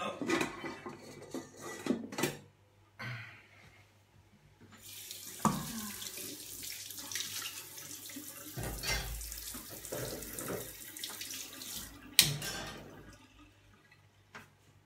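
Kitchen tap running into the sink for about seven seconds, with a sharp knock as it starts and a louder one as it stops. Before it, a couple of seconds of things being handled and set down.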